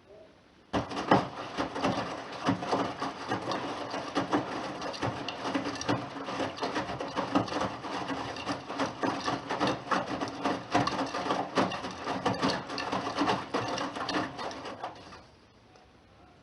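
Bosch Serie 6 front-loading washing machine turning its drum during the wash, the laundry tumbling and knocking inside. The motion starts suddenly about a second in and stops near the end, one turn of the wash rhythm.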